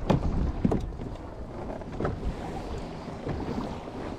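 Wind and sea noise aboard a small inflatable boat, with a few short knocks.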